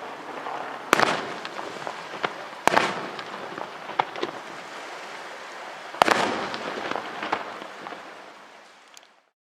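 Aerial fireworks shells bursting: three loud bangs about a second, under three seconds, and six seconds in, with smaller cracks and a crackling haze between them. The sound fades toward the end and then cuts off.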